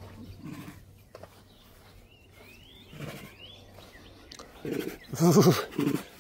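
A tiger chuffing (prusten), its friendly puffing greeting: a run of loud, breathy puffs, several close together, beginning about four and a half seconds in. Faint bird chirps come before it.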